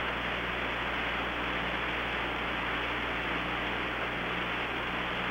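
Steady hiss of the Apollo 11 air-to-ground radio channel, with a faint low hum underneath.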